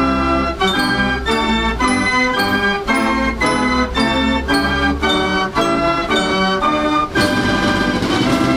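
98-key Marenghi fair organ playing a tune: its pipes sound in rhythmic chords over a bass line.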